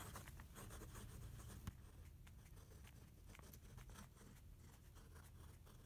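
Fountain pen's steel nib scratching faintly across a ruled legal pad in a quick run of small handwriting strokes, with one slightly sharper tick a little under two seconds in.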